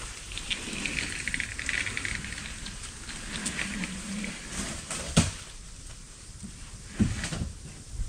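Lumber being handled: light clattering and scraping of boards, then two sharp wooden knocks about five and seven seconds in as boards are set or dropped down.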